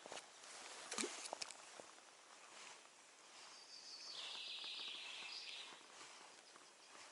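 Quiet outdoor ambience with a few sharp clicks about a second in, then a high buzzing chirr that lasts about two and a half seconds.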